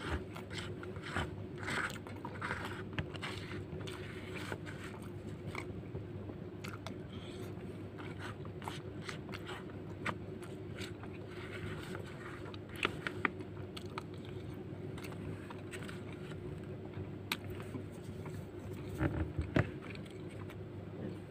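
Plastic spoon scraping rice off a banana leaf and paper wrapping, with chewing and mouth sounds in between, over a steady low hum. A few louder knocks near the end as the spoon is put down.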